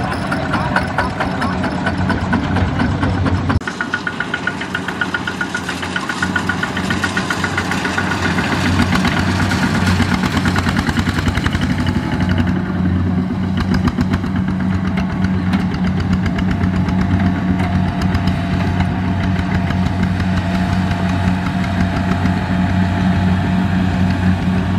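Single-cylinder diesel engine of a Kubota RT155 two-wheel walking tractor running steadily with a fast, even beat. The sound changes abruptly about three and a half seconds in.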